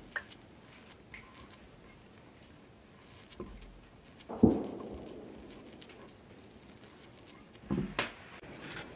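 Crumbly cornmeal dough pressed by hand into a cast-iron heart-shaped pan: soft crackling and crumbling, with one louder thump about halfway through and two more near the end.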